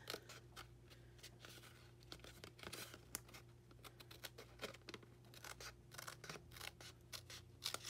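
Scissors cutting through cardstock: a run of faint, irregular snips.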